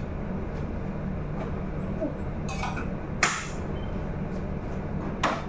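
A few sharp metallic clanks of stainless steel cooking pots and lids on a gas stove: one about two and a half seconds in, another a second later, and one near the end, over a steady low kitchen rumble.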